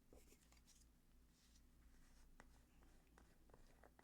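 Near silence: a few faint, short clicks and a light scraping from small craft materials being handled.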